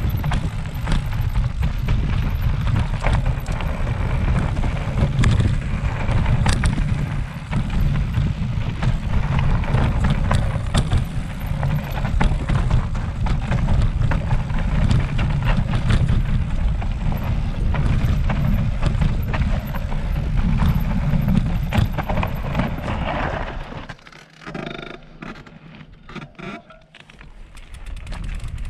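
Mountain bike ridden over rough trail: a steady rumbling noise full of clattering knocks, easing off into a quieter spell for a few seconds near the end.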